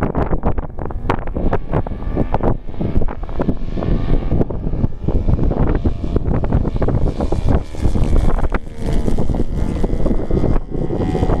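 Wind buffeting the microphone, loud and gusty throughout, with the faint steady drone of a radio-controlled model airplane's engine and propeller coming through from about halfway in.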